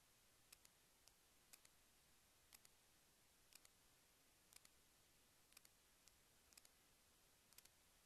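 Near silence with faint, sharp clicks evenly spaced about once a second, most of them a quick double click.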